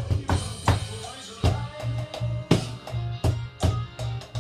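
Electronic drum kit played in a steady rock beat over a backing track with bass, with a drum hit about every third of a second. The beat thins briefly about a second in, then comes back in with a strong hit.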